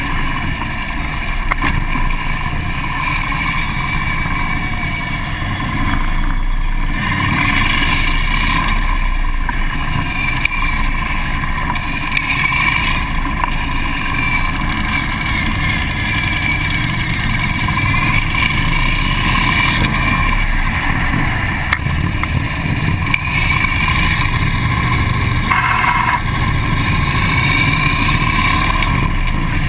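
Onboard sound of a Harley-Davidson police motorcycle's V-twin engine running steadily as the bike rides in formation, with no sharp revs.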